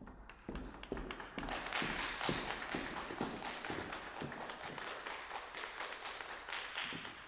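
Audience applauding, building up about a second in and thinning out near the end, with heeled footsteps on a wooden stage floor at the start.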